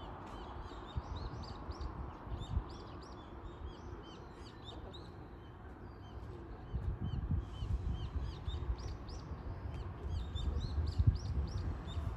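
Small birds chirping over and over, in quick short notes, over a low uneven rumble that grows stronger about halfway through.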